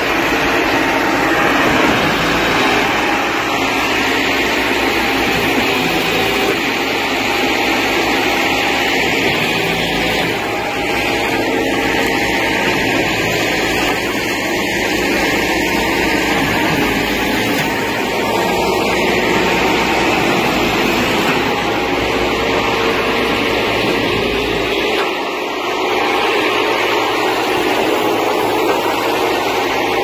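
Trailer-mounted concrete pump and concrete mixer truck running while the pump is fed: a loud, steady machine drone, with a brief dip in the low rumble near the end.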